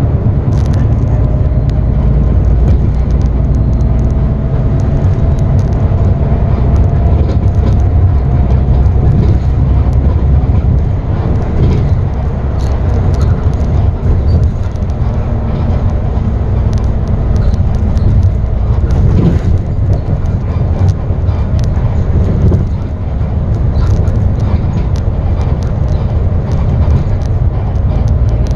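Limousine bus running on the road, heard from inside: a steady low engine and road rumble with scattered small rattles. A faint whine rises slowly in pitch in the first third as the bus gathers speed.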